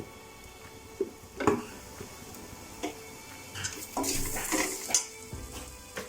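Onion masala frying and sizzling in a pan as it is stirred, with scattered knocks of the stirring utensil against the pan and a louder burst of scraping and sizzling about four seconds in. The spiced onions are being roasted with coriander powder.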